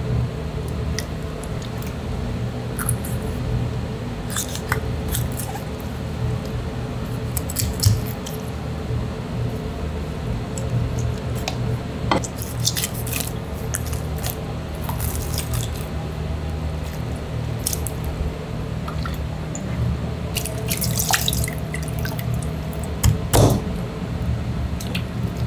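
Wet slapping and dripping as a skinned tiger pufferfish is handled, with scattered clicks and a few knife knocks on a plastic cutting board near the end, over a steady low hum.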